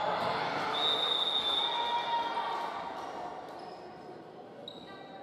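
Players and spectators cheering and shouting in a large gym as a volleyball point is won. The noise is loudest at first and dies away over about three seconds.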